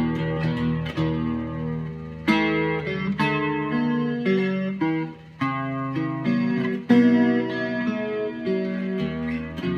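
Solo Godin 5th Avenue archtop guitar picking a melody over ringing bass notes and chords, with a short gap about five seconds in and a strong chord near seven seconds.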